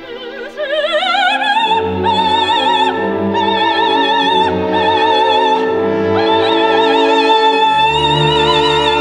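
Background music: operatic singing with wide vibrato over orchestral accompaniment. About a second in, the voice rises in pitch, then holds long notes while low sustained orchestral notes play beneath.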